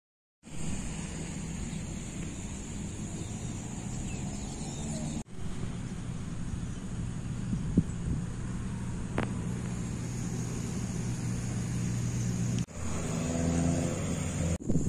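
Outdoor ambience with a steady low rumble like a running vehicle engine and a steady high-pitched drone above it. It drops out briefly a few times at cuts, and there is one sharp click near the middle.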